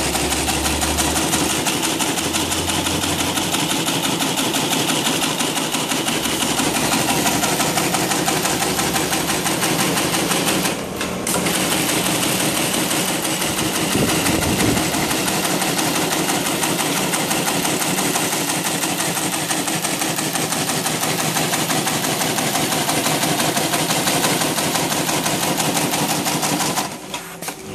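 Meixin 2-axis broom tufting machine running, its tufting head punching tufts of green plastic bristle into a broom block in a rapid, steady clatter. The sound dips briefly about eleven seconds in and drops off near the end.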